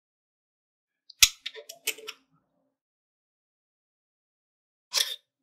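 Metal hand tools clicking against the eccentric nut and wheel of a 3D printer carriage as the nut is adjusted: one sharp click about a second in, a quick run of smaller clinks after it, and another click near the end.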